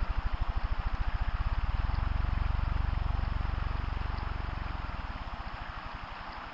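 A low, even throb pulsing about seven times a second, quickening until the beats run together, then slowly fading, over a steady hiss.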